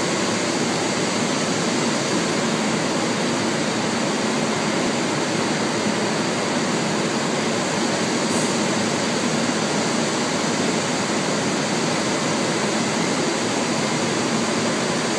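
Steady factory machinery noise in an industrial plant: an even, loud rushing din with no rhythm and no change.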